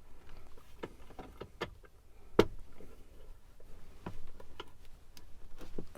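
Bench vise being cranked tight on a copper pipe in a 3D-printed mould: scattered clicks and creaks from the vise screw and handle as the pipe is squashed flat, with one louder knock about two and a half seconds in.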